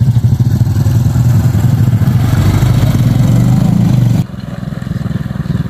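Small step-through motorcycle engine running at low speed as the bike passes close by over rough, rocky ground, its exhaust pulsing rapidly. About four seconds in, the sound drops suddenly to a quieter engine.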